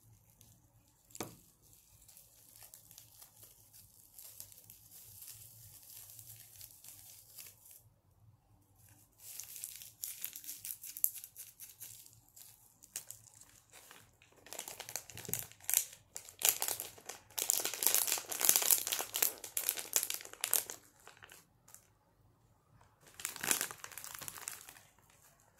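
ASMR triggers made close to the microphone: crisp crinkling and scratching in bouts, the longest and loudest in the second half, with a single sharp tap about a second in.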